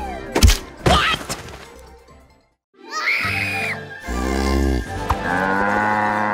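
Cartoon comedy soundtrack. A couple of sharp hit sound effects come in the first second, then a brief silence, then music with long held notes and sound effects.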